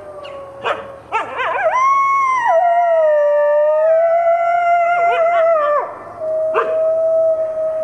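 Red wolves howling in chorus with other wolves: several long howls overlap at different pitches, starting with wavering, rising notes about a second in, with a few short yips. After a short break about six seconds in, a single long, steady howl carries on.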